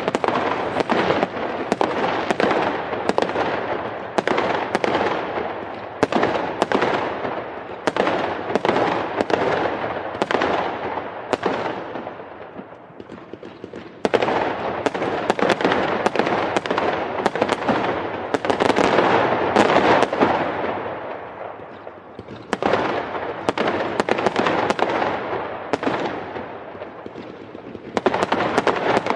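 Fireworks exploding in a rapid, irregular barrage of sharp bangs with crackling between them. The barrage eases off briefly twice, about halfway through and again about two-thirds of the way in, then picks up again.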